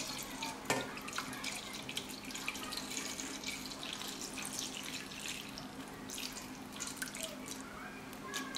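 Thin stream of water pouring steadily from a kettle onto a plate inside a stainless steel pot, splashing as the pot fills, with a short knock about a second in.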